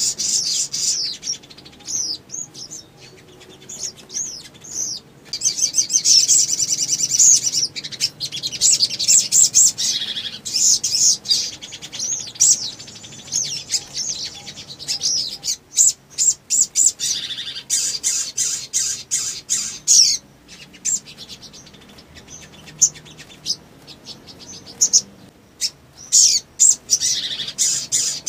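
A caged sogon (sogok ontong), a small curved-billed songbird, singing in full excited song: repeated bursts of high, rapid chirps and trills, some run on for two or three seconds, with short breaks between.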